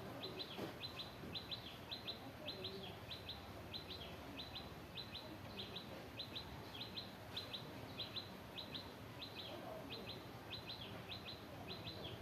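A bird chirping over and over in quick pairs of short, high notes, about two pairs a second, over low, steady background noise.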